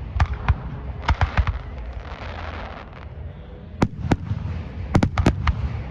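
Aerial fireworks bursting: about ten sharp bangs in quick clusters (two near the start, four about a second in, then more near the end), with a rolling crackle between them.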